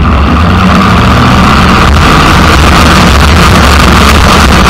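Demolition derby car's engine running loud and unmuffled through open exhaust stacks that come straight up through the hood, heard up close. It makes a steady low rumble with a rasp that grows a little stronger about a second and a half in.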